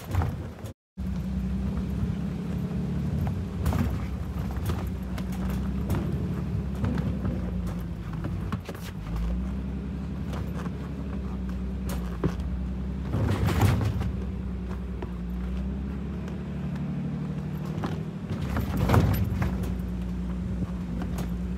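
Car driving: a steady engine and road drone, with two louder bumps, one a little past halfway and one near the end.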